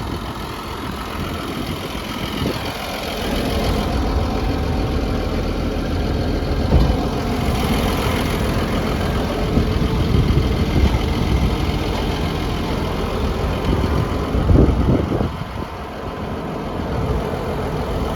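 Caterpillar D6N LGP bulldozer's diesel engine idling steadily.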